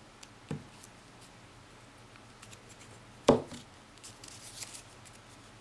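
Faint rubbing and rustling of a glue stick and a thin paper strip being handled and rolled between fingers. There is a light knock about half a second in and a louder thump a little after three seconds.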